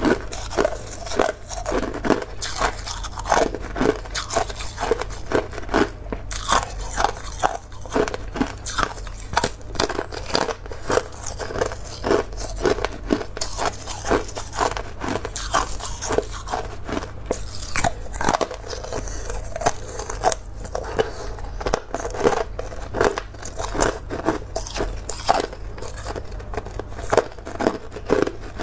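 Hard ice being bitten and chewed close to the microphone: thin sheets of clear ice crunching and cracking, several sharp cracks a second without a pause.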